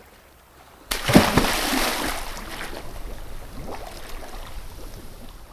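A big splash into water, starting suddenly about a second in, followed by sloshing and bubbling that fades away over several seconds.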